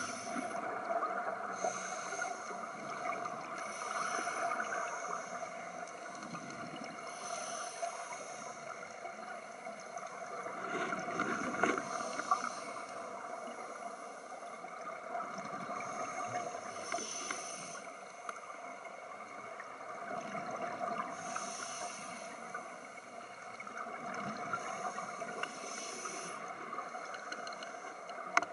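Scuba divers breathing through their regulators underwater: exhaled bubbles rush and gurgle in a burst every few seconds, over a steady hum.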